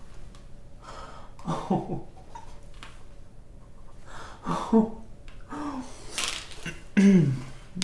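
Several short wordless vocal sounds from a man, with breaths between them. The loudest comes near the end.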